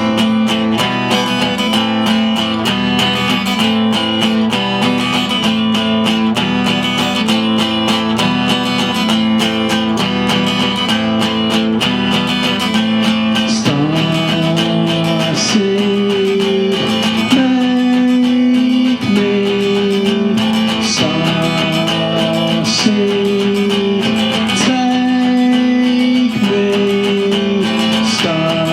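Acoustic guitar playing an instrumental passage with no singing: quick picked notes at first, then from about halfway longer held notes that slide between pitches.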